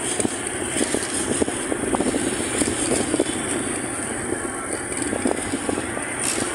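Steady running noise of a moving vehicle on a town road, with wind fluttering on the microphone.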